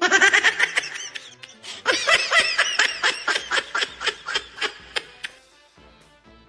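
High-pitched cartoon-style giggling in two bouts, the second starting about two seconds in, each breaking into a run of short laugh pulses that fades out.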